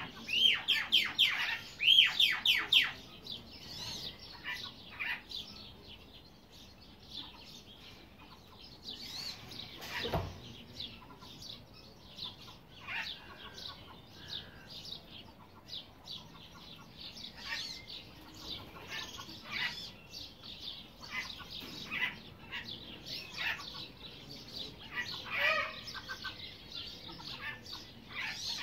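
Birds calling: a fast run of loud, falling calls for the first three seconds or so, then scattered short chirps and peeps. One dull thump about ten seconds in.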